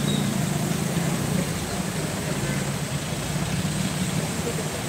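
Diesel engine of an Eicher water tanker truck idling, a steady low hum over general street noise.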